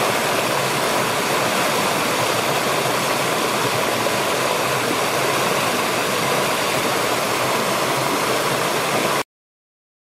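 Small rocky forest stream rushing and splashing over low cascades, a steady, even sound of running water that cuts off abruptly near the end.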